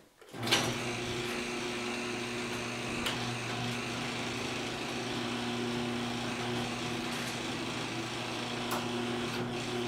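Garage door opener running steadily, starting about a third of a second in, as it lifts a sectional garage door loaded with table saw sleds hung on its panels.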